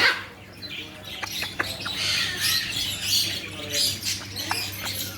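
Caged birds chirping and squawking over and over in short high calls, with a few sharp clicks in the first couple of seconds and a steady low hum underneath.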